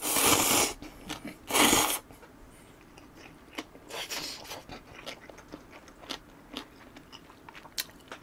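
A person loudly slurping thick ramyeon noodles, twice in the first two seconds, then chewing with small wet clicks.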